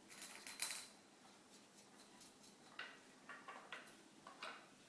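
Small metal furniture-assembly hardware clinking and jingling for about the first second, with a bright ringing tone. A few fainter clicks follow.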